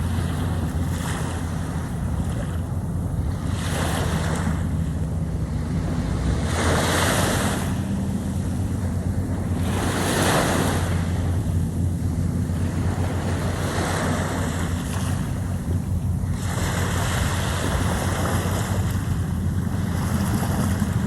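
Caspian Sea waves washing in, a swell of surf noise about every three to four seconds, over a heavy, steady rumble of wind on the microphone.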